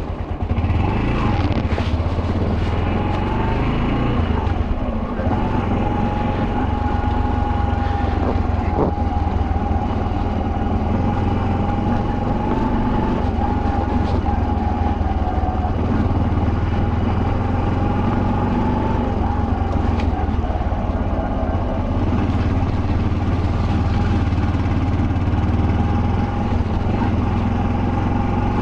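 Yamaha YBR125's single-cylinder four-stroke engine running at a steady pace under way, with a low rumble of wind and road.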